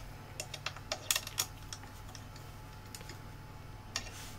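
A quick run of small, sharp clicks and taps as small screws are handled and a long hex key is fitted to a fan-mount screw in a 3D-printed plastic drive mount, then sparser, with one more click near the end.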